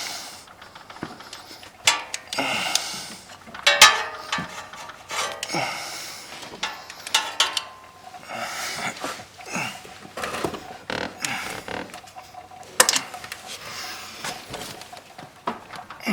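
Irregular metal clinks, knocks and scraping of hand tools against an ATV engine as a stuck starter motor is worked loose.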